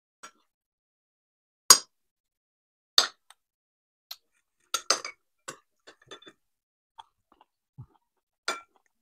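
Metal cutlery clinking and scraping against ceramic bowls as two people eat: scattered sharp clinks, the loudest about two and three seconds in, with a quick run of them around five seconds.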